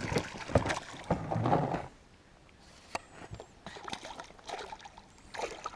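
Water splashing and sloshing around a small boat, with a few sharp knocks. It is busiest in the first two seconds, then turns quieter with scattered splashes.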